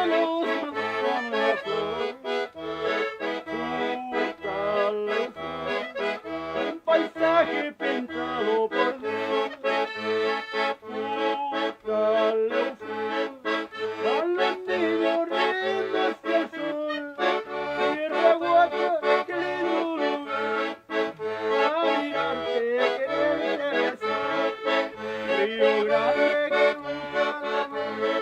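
Background music led by an accordion, with a steady bass beat.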